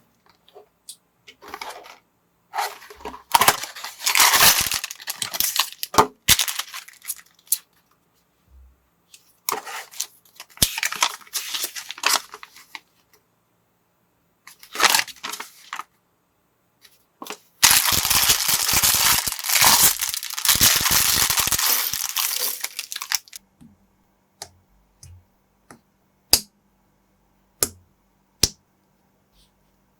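Plastic packaging of building-block parts crinkling and tearing in several bursts, the longest lasting about five seconds. Near the end come single sharp clicks of plastic bricks being snapped together.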